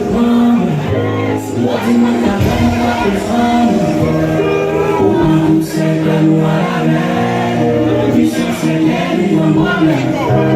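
Music with singing voices over sustained held chords.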